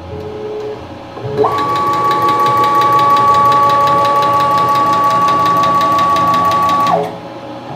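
PM-727M mill's X-axis table traversing, driven by its stepper motor and ball screw. A steady whine with a rapid, even clicking over it starts about a second and a half in and stops near the end, after a short lower tone at the start. The clicking is a fault that has crept in over a few weeks; the owner wonders whether the angular contact bearings are causing it.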